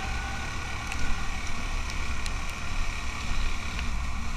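Motorcycle riding along at steady speed: wind buffeting the microphone as a heavy low rumble, over the engine's steady hum and road noise, with a few light clicks.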